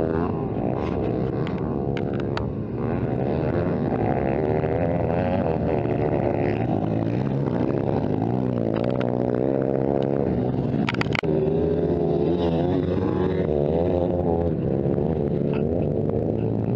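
Several motocross bikes' engines revving together, their pitch repeatedly rising and falling as the throttle is opened and shut, with one sharp knock about two-thirds of the way through.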